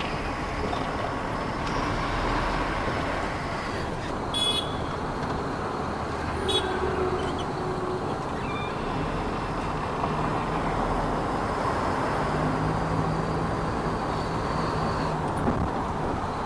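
Truck driving through town traffic, heard from inside the cab: a steady engine and road drone, with two short horn toots a few seconds in, about two seconds apart.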